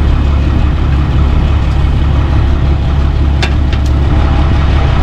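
Heavy engine running steadily at idle, with two short clicks about three and a half seconds in.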